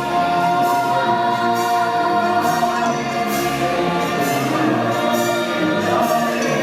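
Stage-musical score: orchestral music with a choir of voices singing held notes, and a regular beat in the high end.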